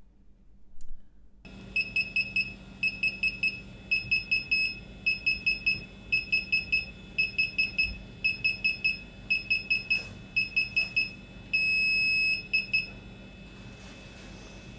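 DJI Phantom 3 Professional remote controller beeping during its firmware upgrade: quick clusters of three or four high beeps, repeating again and again. Near the end comes one long steady beep, then a few short ones before it stops, as the upgrade finishes.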